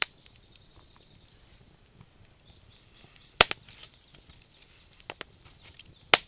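Wood fire crackling: a few loud sharp pops, one right at the start, one about halfway and one near the end, with smaller snaps between them.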